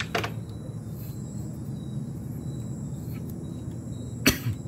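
Copper head gasket being handled and fitted over the cylinder studs of a Yamaha RX two-stroke, with a faint click just after the start and a sharp metallic clink near the end.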